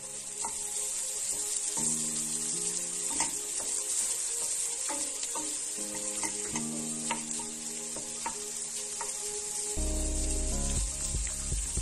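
Diced red pepper, onion and chouriço sizzling as they sauté in a metal pot. A wooden spoon stirs them, with scattered scrapes and taps against the pot.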